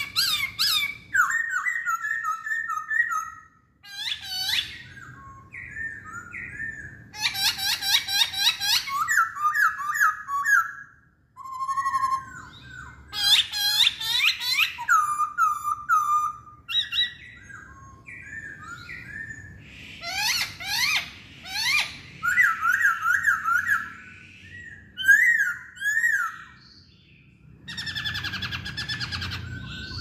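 A caged black-throated laughingthrush (poksay hongkong) singing a loud, varied song of rapidly repeated whistled notes and sweeping phrases, broken by a few short pauses.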